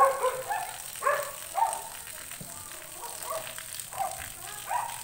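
A dog barking: several short barks at uneven intervals.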